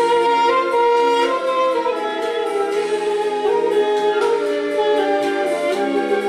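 A hand-held wind instrument playing a sustained, reedy melody, the notes gliding and ornamented from one to the next.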